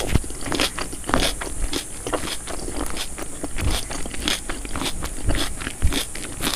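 Close-miked eating sounds: wet, irregular clicks and smacks of a mouth chewing hand-eaten biryani, with fingers squishing and mixing rice on a plate.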